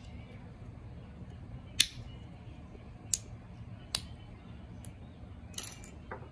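Sharp clicks and snaps of a small glass vaccine vial's plastic flip-off cap and aluminium crimp seal being pried and torn off by hand: four clicks, the loudest about two seconds in, then a short scraping rasp near the end.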